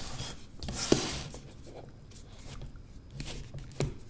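Cardboard phone box being worked open by hand: the packaging rubs and scrapes, with a longer sliding scrape about a second in and a couple of small knocks near the end.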